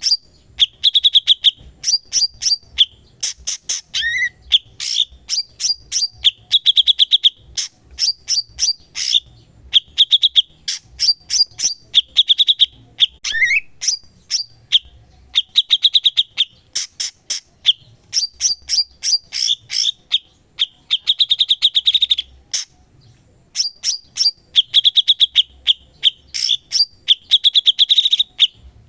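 Cucak cungkok singing continuously: fast runs of sharp chattering notes alternate with rolling trills, repeated phrase after phrase with only brief pauses.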